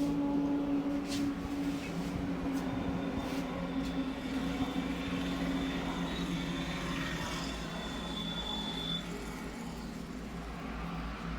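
A motor vehicle engine running, a steady hum with slowly drifting tones, with a few faint taps in the first few seconds.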